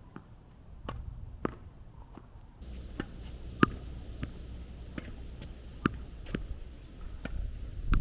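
A series of sharp taps and knocks on a hard surface, roughly one every half second to second, over a low background rumble.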